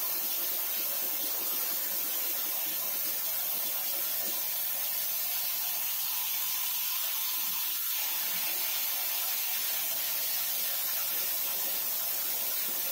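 Hypertherm plasma cutter's post-flow air purge: compressed air hissing steadily out of the torch after the cut.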